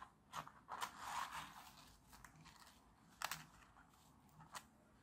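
Small 3D-printed plastic puzzle pieces handled and set down on a work mat: faint clicks and taps, a few of them sharp, with a brief scraping rustle about a second in.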